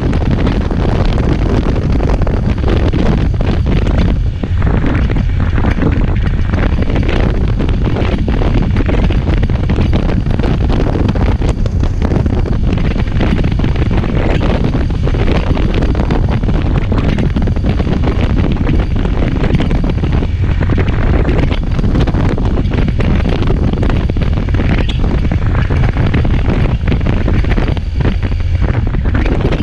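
Heavy wind buffeting the microphone on a moving motorcycle, a loud, steady rush strongest at the low end.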